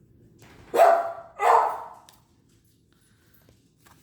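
Pet dogs barking twice in quick succession, two short loud barks.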